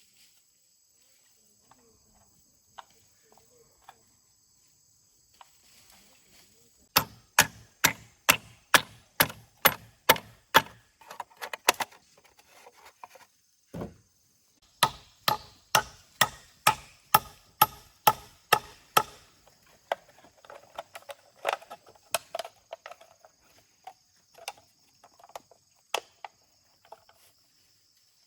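Wood being chopped with a blade: two runs of quick, even strikes about three a second, with scattered single strikes between and after.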